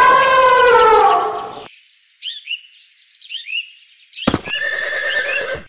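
Sound-effect horse whinny: one long call that falls slowly in pitch. It is followed by thin, high bird chirps, a sharp click about four seconds in, and a second, steadier animal call near the end.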